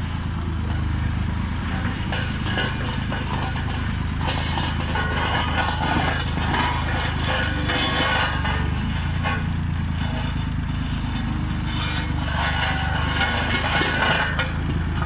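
Road roller's engine running steadily, with stretches of louder, harsher noise over it at times.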